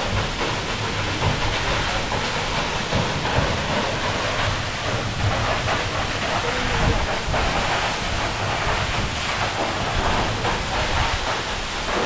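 Waterfall falling into its plunge pool: a steady, unbroken rush of water.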